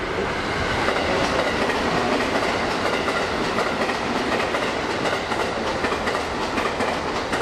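Electric commuter train running through the station, its wheels clacking rapidly over the rail joints in a steady, loud rumble.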